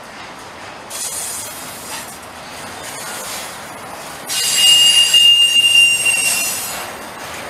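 Union Pacific intermodal freight train rolling past, with a loud, high wheel squeal from about four seconds in, lasting about two seconds.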